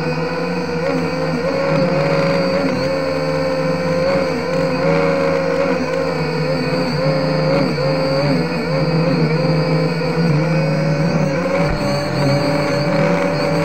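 Toy quadcopter's small electric motors and propellers whining, picked up by the mini camera on board, so the buzz is loud and close. The pitch holds steady but wavers up and down every second or so as the throttle changes in flight.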